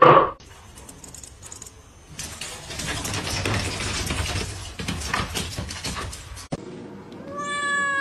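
A cat giving one long drawn-out meow that falls in pitch, starting about seven seconds in. Before it come a short loud burst at the very start and several seconds of rustling and clattering noise.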